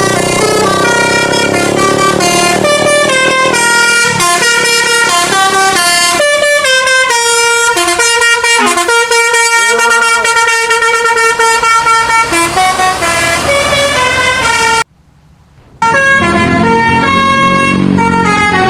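Bus basuri melody horn (Indonesian 'telolet' horn) playing a loud tune of stepped, held notes. It breaks off sharply about 15 seconds in, and a second horn tune starts a second later.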